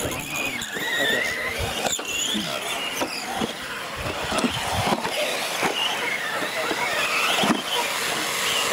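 Several radio-controlled trucks racing on a dirt track: a high motor whine rising and falling with throttle, broken by a few sharp knocks of trucks landing and hitting the ground, the loudest near the end.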